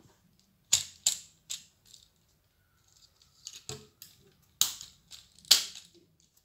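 Plastic parts of a Transformers Siege Springer figure clicking and knocking as they are moved and pushed into place during its transformation: about six sharp clicks, three in the first second and a half and three more later on.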